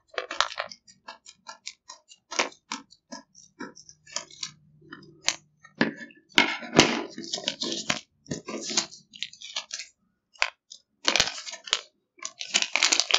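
Scissors snipping through a plastic retail pouch in a run of quick sharp clicks, then the crinkling and rustling of the plastic packaging as it is pulled open and handled.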